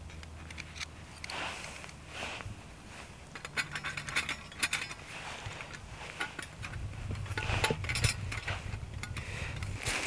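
Steel plates of a Flexfire folding hobo stove clicking and clinking as its pieces are slotted together by hand, with rustling of dry leaves between the clicks.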